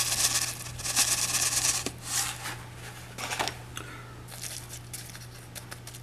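Granular burst charge poured into a cardstock shell half: a gritty rattling hiss of grains for about the first two seconds. Then a few scrapes and light clicks as fingers press the powder down in the shell.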